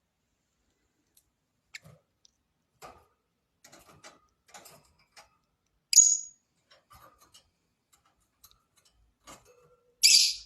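Lovebirds in their cage: scattered small clicks and taps of pecking at food, a sharp high chirp about six seconds in, and a louder shrill call near the end.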